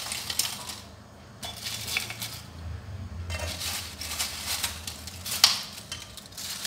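Crisp sugar-coated fried banana chips clattering onto a ceramic plate and being moved with chopsticks: a run of irregular light clicks and clinks, the sharpest about five and a half seconds in.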